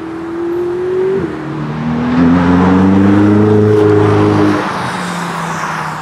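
Ferrari 488's twin-turbo V8 accelerating past with its pitch climbing under throttle, after a short dip about a second in. It is loudest in the middle, then falls away suddenly about three-quarters of the way through as the revs drop.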